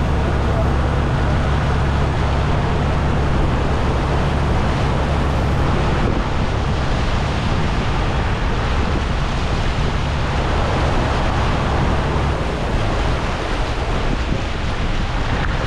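Fishing boat's diesel engine running steadily at sea as a low hum, under a steady rush of wind and water; the hum eases somewhat about twelve seconds in.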